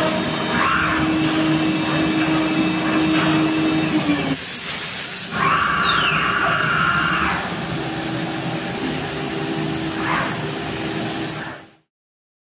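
Steady whir of woodworking drilling machinery with dust extraction running, broken by a few brief louder spells of drilling. It cuts off abruptly near the end.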